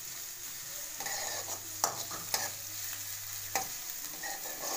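Chopped masala frying in hot oil in a metal kadhai, sizzling steadily, while a steel spoon stirs it and scrapes against the pan with several sharp clicks.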